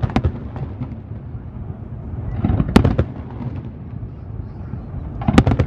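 Aerial firework shells bursting: a couple of sharp bangs right at the start, a cluster of quick bangs near the middle and another cluster near the end, over a continuous low rumble.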